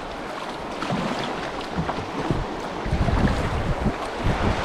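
Rushing river water, with wind buffeting the microphone in low rumbling gusts that grow stronger about three seconds in.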